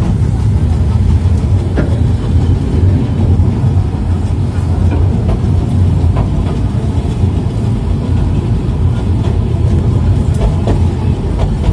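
Steady low rumble of a narrow-gauge train running along the track, heard from on board, with a few faint clicks from the rails.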